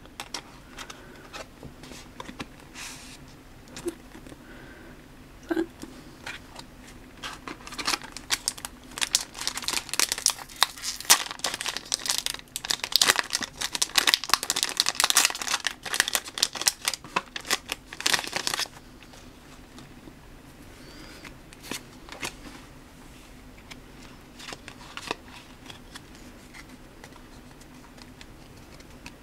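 A foil trading-card booster pack being torn open and crinkled in the hands: dense crackling and tearing for about ten seconds in the middle, with lighter scattered rustles and clicks before and after.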